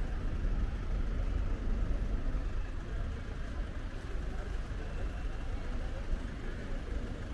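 Steady outdoor city ambience: a continuous low rumble with faint, distant voices.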